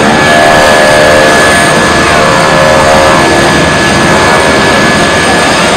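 Boeing Stearman wing-walking biplane's radial engine droning in flight, loud and steady.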